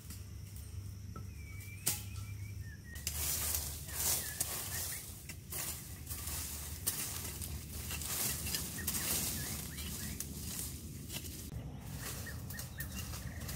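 Dry leaf litter and brush crunching and rustling under footsteps and hands working through undergrowth, louder and busier from about three seconds in.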